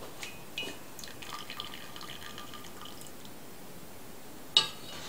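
Water dripping and trickling back into a stainless saucepan as boiled chiles and onion are lifted out with a spoon. About four and a half seconds in, the spoon strikes the pan with a single sharp metal clink.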